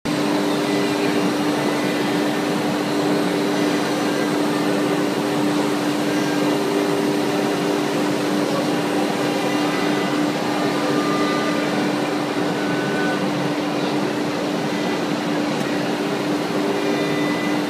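HSD 9 kW air-cooled spindle of a CNC wood router running with a steady high hum while routing a wood sheet, over a constant hiss of cutting and air.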